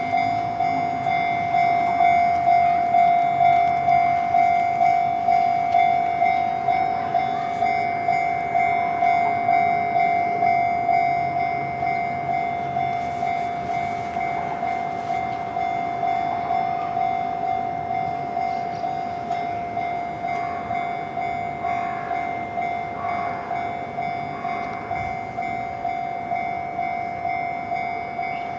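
Japanese railway level-crossing warning bell ringing in even, repeated ding strokes, about two a second.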